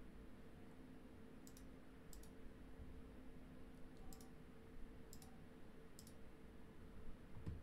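Faint computer mouse clicks, five at irregular intervals, over a low steady hum.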